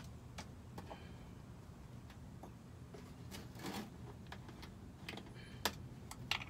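Scattered light clicks and taps, with a brief rustle a little past the middle and the sharpest click near the end, over a faint low steady hum: a person handling small objects.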